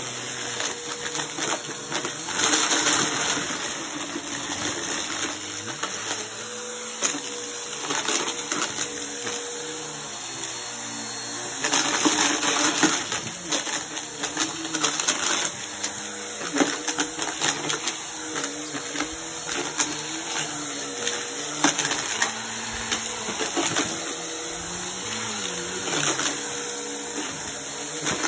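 Upright vacuum cleaner running on carpet, its motor hum wavering in pitch as it is pushed back and forth. Bottle caps, buttons, coins and rice rattle and clatter through it in a steady stream of clicks, loudest in bursts about two seconds in and again around twelve seconds in.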